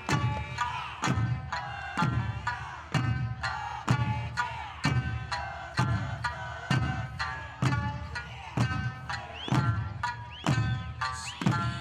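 Background music: a low drum beat about once a second under a plucked string melody with bending notes.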